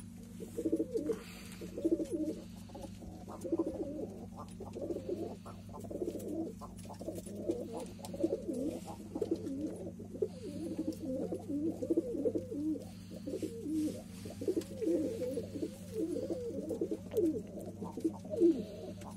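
Domestic pigeons cooing over and over, several birds' calls overlapping almost without a break, over a steady low hum.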